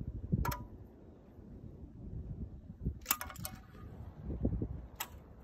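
A few sharp clicks, one shortly after the start, a cluster about three seconds in and one near the end, over a low uneven rumble of handling and wind on the microphone. The Kubota B4200 tractor's diesel engine is not yet running.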